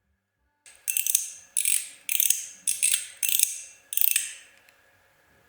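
A metal fidget slider (push card) being slid back and forth, six quick bright metallic clicking slides about every half second, each snapping in and dying away.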